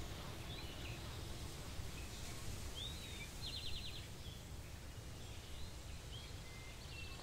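Faint woodland ambience: songbirds giving scattered short chirps, one swooping call and a quick trill of about eight notes a little over three seconds in, over a low steady rumble.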